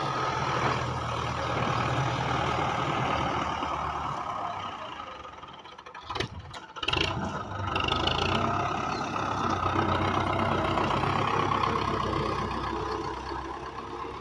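Belarus tractor's diesel engine running steadily while it works a front-loader shovel. The sound fades briefly around the middle, with a few sharp knocks, then the engine picks up again.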